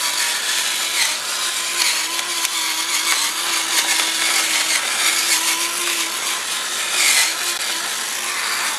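Battery-powered electric pepper mill running steadily, its small motor whining as it grinds peppercorns.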